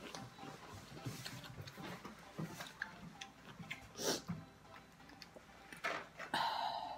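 Table-eating sounds: a fork clicking and scraping on a plate, with small taps and chewing noises. A brief louder sound comes a little past six seconds in.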